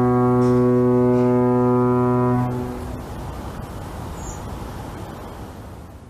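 A deep, steady horn-like tone held on one pitch, cutting off about two and a half seconds in. A rushing noise follows and fades away near the end.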